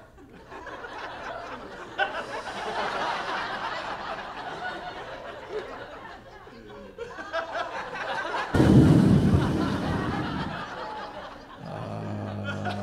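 Comedy club audience laughing and chuckling after a punchline, rising and falling. About eight seconds in, a sudden loud blast of noise, heavy in the low end, fades over a couple of seconds.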